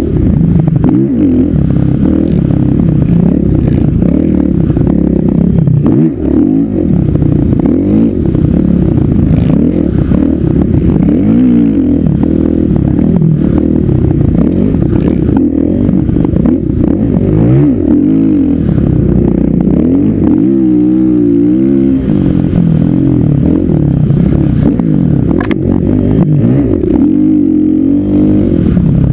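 Dirt bike engine under way over sand, revving up and down continuously as the throttle opens and closes. About two-thirds of the way through the pitch wavers rapidly for a couple of seconds.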